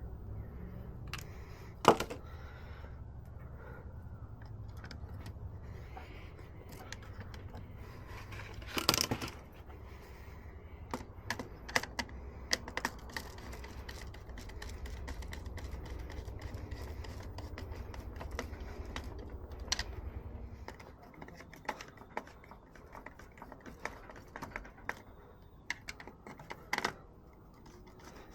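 Small clicks, taps and knocks of hand tools and small parts being handled, two of them sharper and louder. A steady low hum runs underneath and stops about three quarters of the way through.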